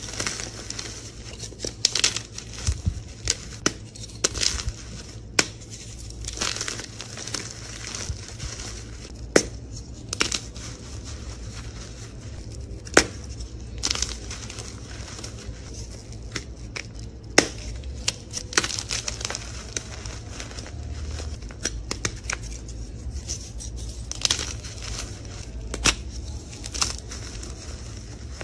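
Blocks of reformed gym chalk being crunched and broken apart by hand and crumbling into loose chalk powder. Irregular sharp snaps every second or so sound over a steady dry crumbling rustle.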